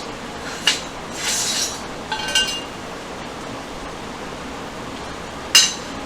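Metal garage door opener rail sections being handled and fitted together: a few sharp metallic clicks, a short sliding scrape, and a brief ringing clink about two seconds in.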